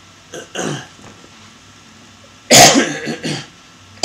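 A man coughing close to a microphone: a softer cough under a second in, then a loud fit of several coughs about two and a half seconds in, and another starting at the very end.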